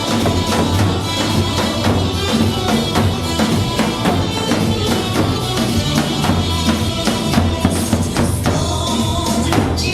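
Loud dance music with a steady beat of drums and tambourine.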